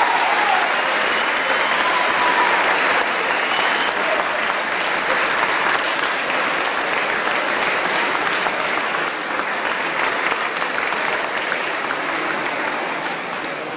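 Large crowd applauding steadily, easing off gradually near the end.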